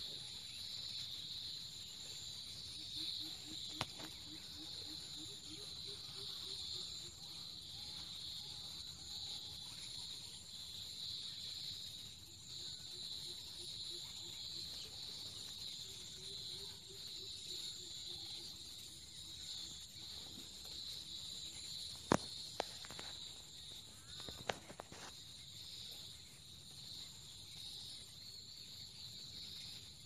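Steady high-pitched chorus of insects, with a few sharp clicks, two of them close together past the middle.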